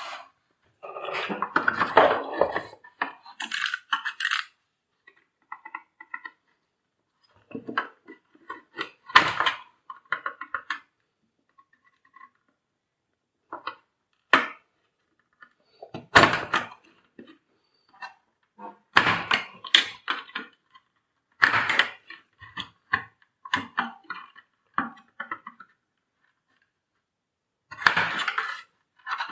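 Irregular clattering and knocking of hard parts as the jammed cord reel mechanism of a Panasonic MC-CJ911 vacuum cleaner is handled and worked. The bursts come every couple of seconds with short silences between them.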